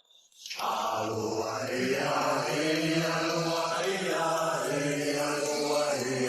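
Background music: a song with long held, chant-like vocals, coming in about half a second in after a brief silence.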